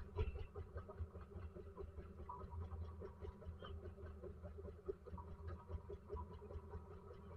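The fishing boat's engine running in a low steady hum, with scattered small knocks of line and gear being handled at the rail.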